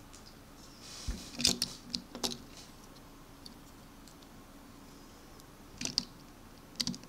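Hard plastic Lego pieces and minifigures clicking and knocking as hands handle a small Lego trike model: a cluster of sharp clicks about a second in, and a few more near the end.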